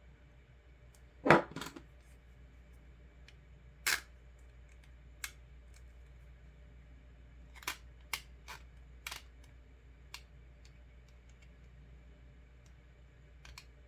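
Scattered sharp clicks and taps, about nine in all, the loudest a single clack a little over a second in, with a cluster of lighter ones later: metal nail stamping plates and a plate binder being handled.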